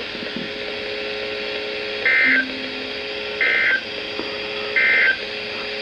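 Three short bursts of buzzing digital data tones from a NOAA Weather Radio, with about a second between them: the SAME end-of-message code that closes a National Weather Service warning broadcast. A faint steady low tone hums underneath.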